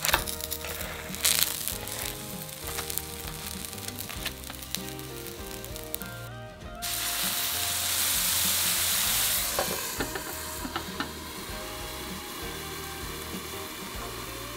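Aburaage-wrapped pork dumplings sizzling in a frying pan, with chopsticks clicking against the pan as they are turned. About seven seconds in, water hits the hot pan and hisses loudly for about three seconds, then settles to a steady sizzle: the start of steam-frying.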